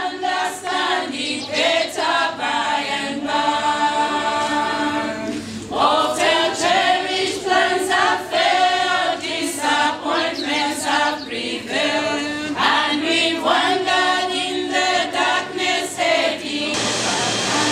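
A group of voices singing together unaccompanied, as a choir. A steady hiss joins under the singing near the end.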